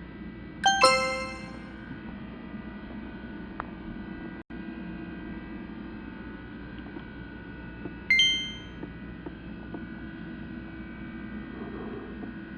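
Bell-like metallic dings: a quick double strike about a second in and a single strike about eight seconds in, each ringing out briefly, over a steady low hum.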